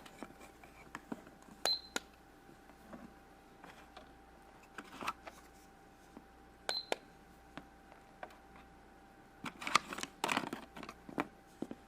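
Toy cash register's scanner giving a short high beep twice, once about two seconds in and again about seven seconds in, amid light clicks and knocks of plastic play groceries being handled and passed over it.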